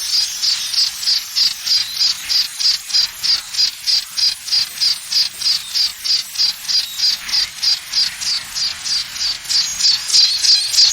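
High-pitched insect chirping in a steady rhythm, about three short chirps a second.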